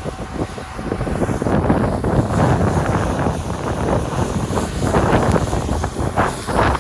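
Wind buffeting the microphone in rough, gusty swells during a ski run in a snowstorm.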